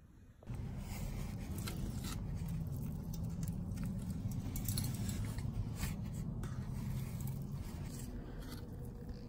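A trowel scraping and smearing wet refractory mortar around the inside wall of a metal-bucket foundry, in short irregular scrapes over a low steady hum.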